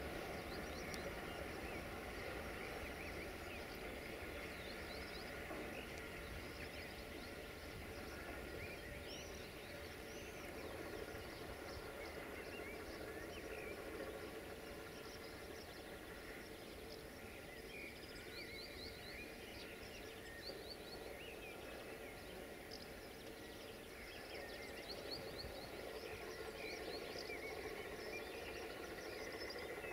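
Birds chirping and singing in short trills over a faint, steady background hum.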